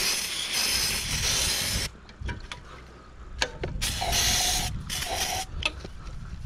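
Aerosol solvent spray hissing from a can into a push mower's carburetor to evaporate water left in it: one long spray of about two seconds, then two shorter bursts about four and five seconds in. Small clicks and knocks of parts being handled come between the bursts.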